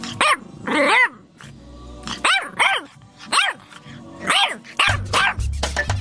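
A French bulldog puppy barking: a series of about seven short, high-pitched yaps, each rising and falling in pitch. Music comes in near the end.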